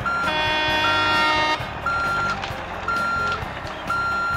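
Truck reversing-alarm sound effect: a steady high beep, about half a second on and half a second off, repeating about once a second. For the first second and a half a held, many-toned tone sounds over it.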